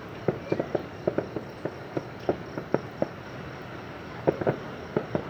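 Fireworks crackling: irregular sharp pops, some coming in quick clusters of two or three, over a steady background hum.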